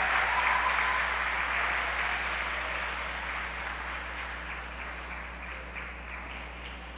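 Audience applauding, fading steadily, with scattered single claps in the second half.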